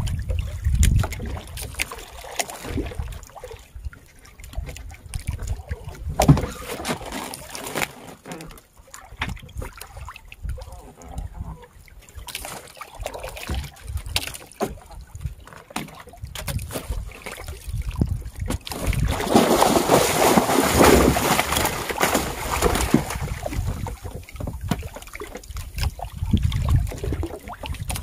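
Water sloshing around a small fishing boat with wind on the microphone, and a louder rush of splashing water about two thirds of the way in.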